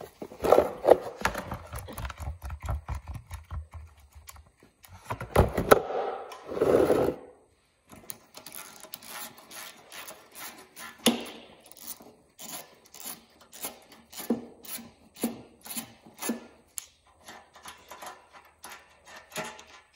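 A ratchet wrench clicking on and off as the fuel-tank mounting bolt of a 1973 Honda XL175 is undone, with knocks and scrapes of metal handling in the first seconds.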